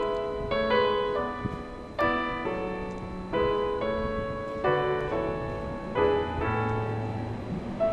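Background piano music, with chords struck about once a second.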